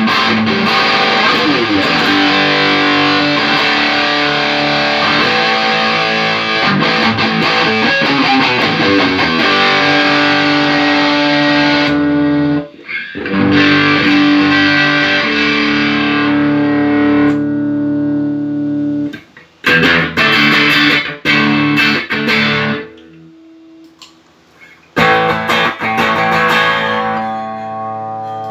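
Electric guitar played through a freshly repaired Tech21 SansAmp GT2 amp-simulator pedal: distorted chords let ring, with a few short breaks in the playing.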